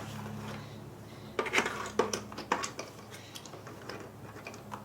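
Several short plastic knocks and clicks as the detachable wrist rest is handled and fitted onto the front edge of a Logitech G710+ keyboard, most of them about a second and a half to two and a half seconds in.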